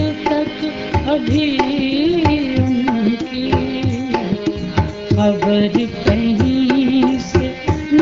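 Instrumental interlude of a Hindustani ghazal: a gliding, ornamented melody on a stringed or bowed instrument over a steady tabla rhythm.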